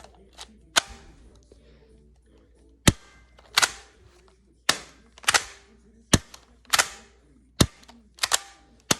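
Sharp plastic clicks and snaps from a homemade toy pistol being worked by hand, about a dozen in all, many coming in close pairs.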